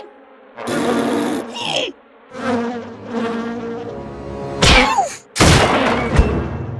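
Cartoon sound effects: a buzzing like an insect, with two loud sudden hits, one with a falling pitch, about five seconds in.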